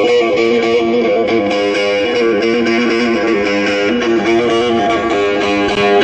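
Bağlama (Turkish long-necked saz) played solo: a quick plucked folk melody over a steady ringing drone note.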